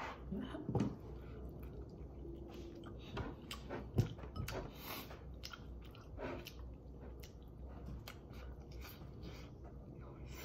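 A person eating chicken by hand, pulling meat off the bird and chewing close to the microphone, heard as a string of short wet clicks and crackles, with one sharper click about four seconds in.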